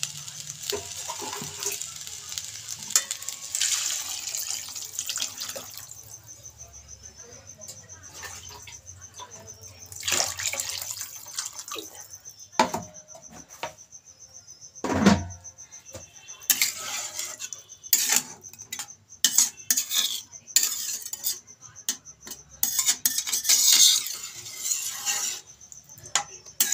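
Water poured into a pan of fried rice and vegetables during the first few seconds, then a metal spatula stirring the watery soup, knocking and scraping against the pan again and again.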